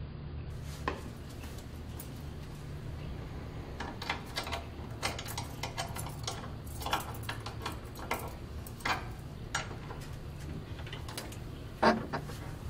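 Small metal clicks and clinks at a door lock, coming in irregular runs, ending in one louder clack just before the door is opened. A low steady hum runs underneath.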